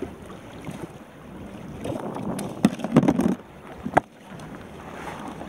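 Water washing against a kayak hull with wind on the microphone, broken by a cluster of knocks about three seconds in and a sharp click at four as a caught yellowtail is moved around in the kayak.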